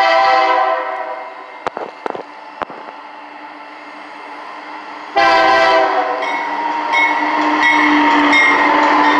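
BNSF diesel locomotive horn blowing a chord, fading out about a second in. After a quieter stretch with a few clicks, the horn sounds again loudly about five seconds in as the locomotive comes close, and the locomotive's engine and wheels on the rails carry on loud as it passes.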